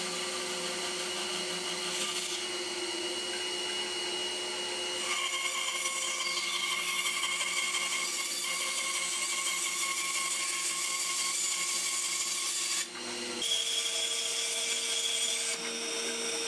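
Bandsaw running and cutting through a laminated oak block, a steady motor and blade hum under the hiss of the cut as the mallet head's ends are trimmed. The sound changes abruptly about five and thirteen seconds in.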